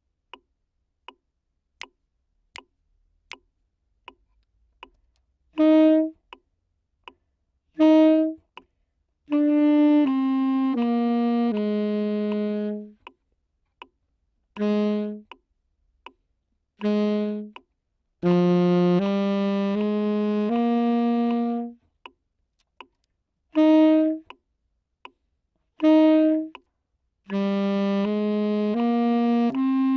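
Tenor saxophone playing a simple exercise melody: short detached notes and stepwise phrases of held notes. It is preceded by about five seconds of evenly spaced clicks, roughly one every three-quarters of a second, like a count-in.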